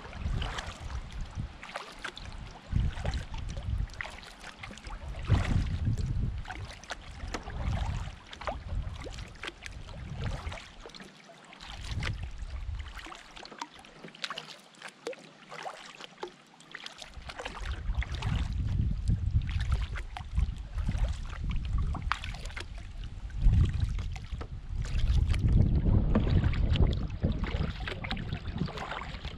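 Canoe paddling: paddle strokes in the water with splashing and dripping throughout, under gusts of wind rumbling on the microphone that come and go.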